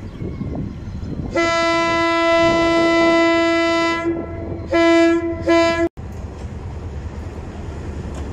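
Diesel locomotive's horn sounding one long blast of about two and a half seconds, then two short blasts, over the rumble of the approaching train. After a cut, the steady rumble and clatter of the locomotive and coaches passing close on a steel girder bridge.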